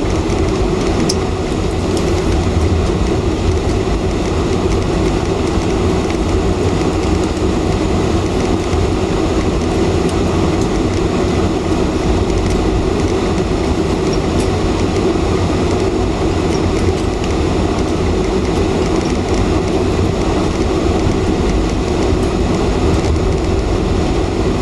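Steady cabin noise inside a Boeing 747-400 taxiing after landing: a low rumble from the engines at taxi power and from the airframe rolling along the taxiway, with a few faint clicks.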